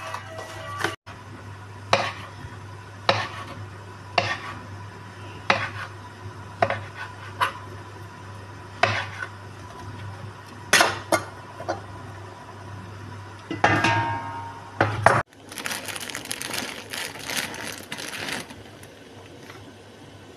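A chef's knife chopping sausage on a plastic cutting board, one sharp knock on the board about every second over a steady low hum. After a cut near the end, a pot of vegetables boiling with a steady hiss.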